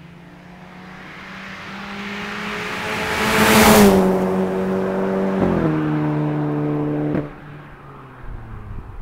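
2006 VW Passat B6 2.0T turbocharged four-cylinder with a 3-inch catless downpipe driving past close by, growing louder to a peak a little over a third of the way in, where its pitch drops as it passes. The engine note steps down twice as it pulls away, and at the second step it suddenly falls in loudness.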